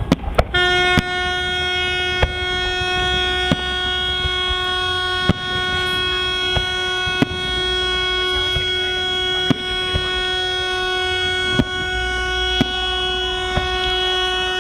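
A horn sounding one long, steady note, held unbroken from about half a second in to the end, over the sharp bangs of a fireworks salute going off every second or two.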